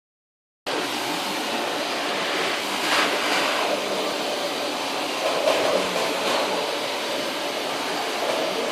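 Vacuum cleaner running with a steady rushing hum that starts just under a second in, swelling briefly a couple of times.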